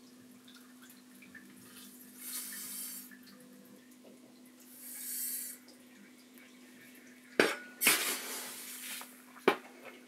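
Fine sand poured from a scoop into the tank, hissing twice, then a metal trowel knocking three times and scraping against the stones as it spreads the sand. A steady low hum runs underneath.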